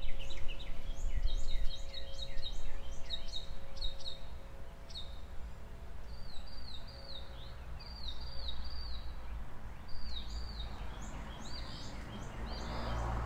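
Songbirds singing outdoors: runs of short, repeated slurred chirps, one run after another, over a low steady rumble, with a faint steady hum in the first half.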